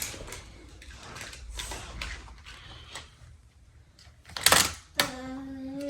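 Plastic toy playset and die-cast toy car clicking and rattling as the car is moved through the set, with a sharp clatter about four and a half seconds in. A steady held tone, rising slightly at its end, follows near the end.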